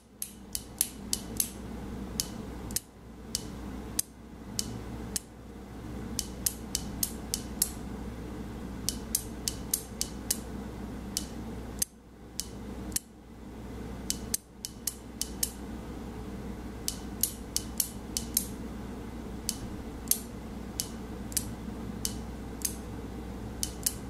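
Improvised light switch clicking as a flashlight is keyed on and off to send SOS in Morse code. The clicks come in repeated groups, runs of quick clicks for the short pulses alternating with slower, wider-spaced clicks for the long ones.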